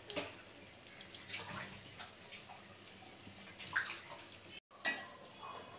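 Pieces of food shallow-frying in hot oil in an aluminium pot: a faint sizzle with scattered pops and crackles. The sound cuts out for an instant about three-quarters of the way through.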